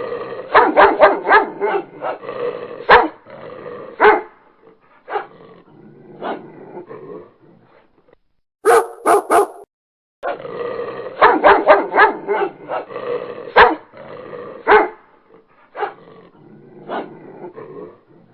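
Dog barking: a rapid run of barks, then scattered single barks. Three short sharp sounds about halfway through are followed by the same run of barks over again, as if the clip loops.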